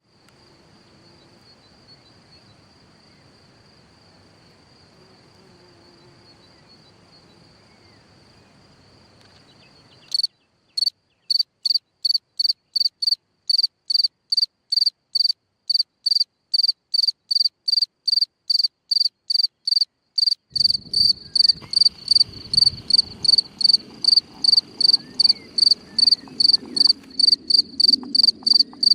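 Cricket singing from its burrow in the ground: loud, regular high chirps that start suddenly about ten seconds in, at about two to three a second. Before the chirps there is only a faint, steady high trill. A low rumble joins the chirping about twenty seconds in.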